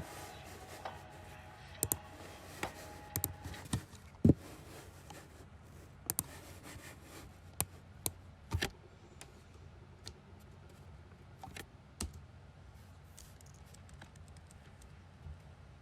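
Irregular small clicks and taps, with a few louder knocks among them; the loudest comes about four seconds in, and the clicks thin out after about nine seconds.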